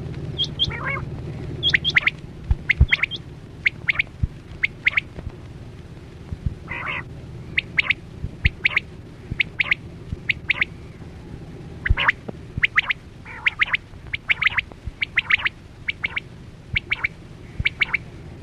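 Quail calling: short, sharp, high notes in quick groups of two or three, repeated over and over, with a few lower rasping notes in between.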